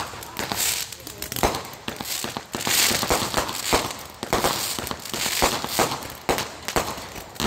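Fireworks going off: an irregular run of sharp bangs from aerial shells bursting overhead, with crackling in between.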